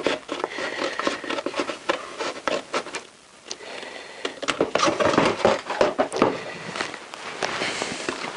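Scissors cutting through card: a run of short snips and rasps, with a brief pause about three seconds in.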